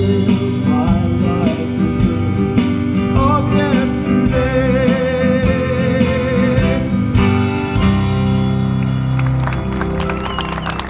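Live country band music, with acoustic guitar, upright bass and drums and a voice singing. A long wavering note is held in the middle, and the music thins and gets quieter near the end.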